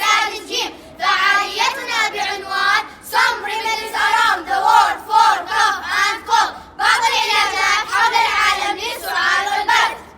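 Children singing a song in high voices, in short phrases that rise and fall.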